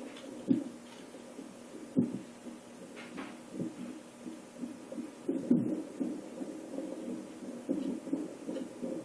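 A person hiccuping repeatedly: short, sudden low sounds every second or two.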